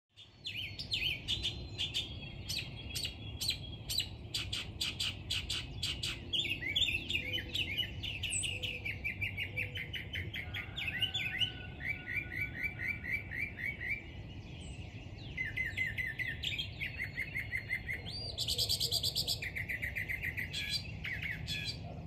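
Dawn chorus of several songbirds singing at once: overlapping rapid trills and fast series of repeated chirps, one after another, over a steady low hum.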